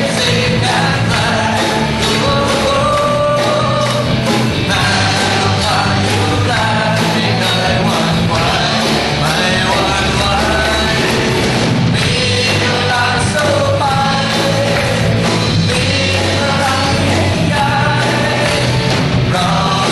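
Live worship song: a man singing lead into a microphone over a loud, full rock-style band accompaniment.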